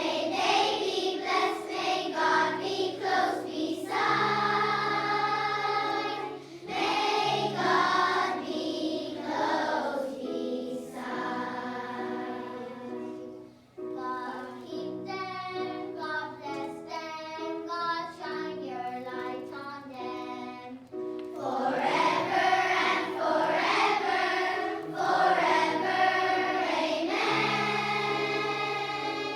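A choir of young children singing a song together over instrumental accompaniment with a steady bass line.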